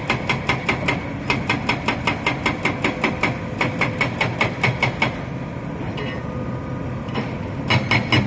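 Heavy diesel machinery running, with a fast, even clicking of about five clicks a second over the engine drone; the clicking stops a little after halfway and starts again near the end.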